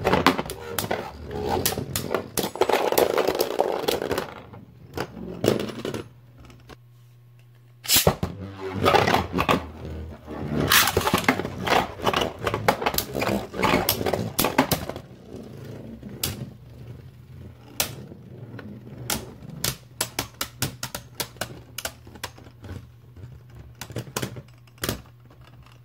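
Two Beyblade Burst tops, Dusk Balkesh and Right Artemis, spinning in a plastic stadium. They make a scraping whir broken by rapid clacking as they strike each other and the stadium wall. The clacking comes in dense flurries, then thins to sparse single clicks in the second half.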